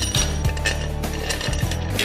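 Background music under a few sharp metal clicks of engine valves and tools being handled over an aluminium cylinder head.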